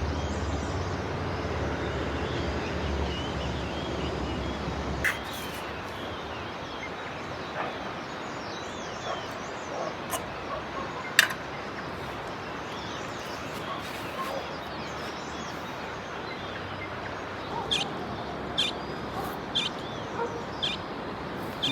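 Birds chirping and calling over a steady background hiss, with a few short sharp chirps near the end. A low hum stops about five seconds in, and there are a couple of sharp clicks.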